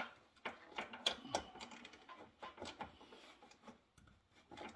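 Faint, irregular metallic clicks and ticks of a wrench and socket being turned on the 1/2-inch bolts at the bottom of an ATV's front strut, backing them off to release the spring tension. The clicking stops briefly near the end.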